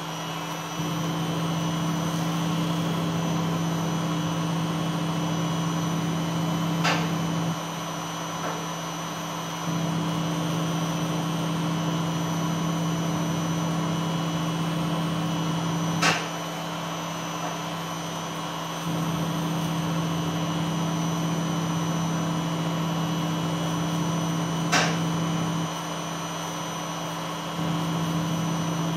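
Beko front-loading washing machine's drum motor humming as it tumbles the load: it runs for about seven seconds, stops for about two, then starts again, four runs in all. A short sharp click comes near the end of three of the runs.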